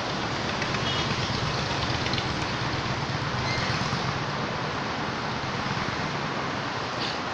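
Steady outdoor background noise with a low rumble that swells slightly between about one and five seconds in.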